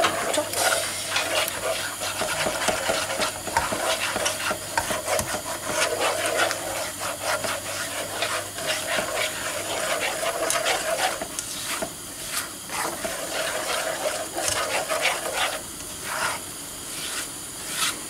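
A spatula scraping and stirring eggs around a non-stick frying pan in hot oil: irregular scrapes and rubs over a low sizzle as the eggs scramble.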